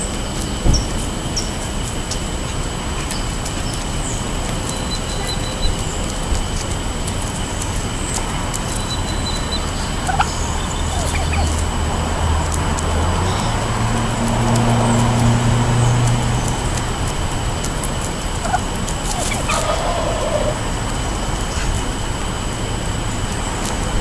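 Wild turkeys feeding on birdseed on pavement, calling now and then, with light clicks of pecking. A low hum swells in the middle and fades.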